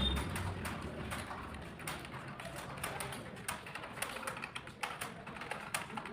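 Computer keyboard keys clicking in a quick, irregular stream: fast typing in a timed typing test.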